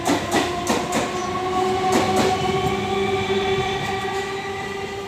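Suburban electric multiple-unit local train pulling out along the platform: a steady multi-tone whine from its traction motors, with sharp wheel clicks over the rail joints in the first couple of seconds.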